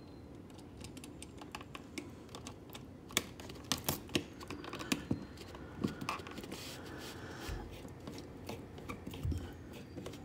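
Screwdriver turning a receptacle's mounting screw into the electrical box by hand, with small irregular clicks and scrapes of metal until the screw sets.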